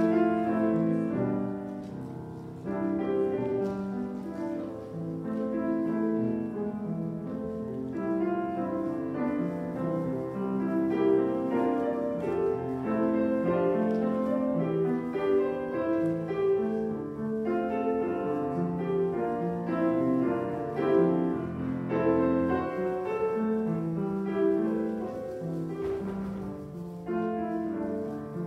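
Piano playing an instrumental piece, with chords and melody notes moving continuously.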